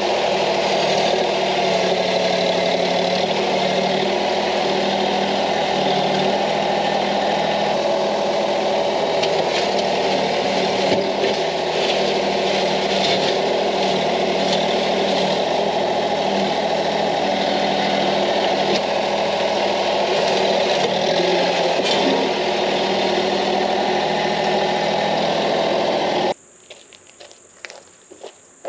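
Branson 2515H compact tractor's 25-horsepower diesel engine running steadily while its loader bucket, fitted with a tooth bar, digs into hard red clay. Near the end the engine sound cuts off abruptly, leaving quiet with a few light footsteps.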